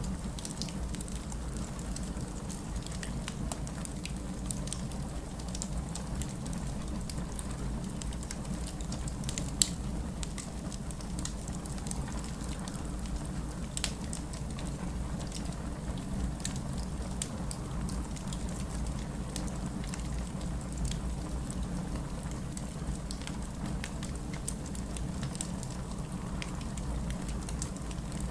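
Wood fire crackling in a fireplace, with scattered pops and two sharper ones about ten and twelve seconds in, over a steady low rumble.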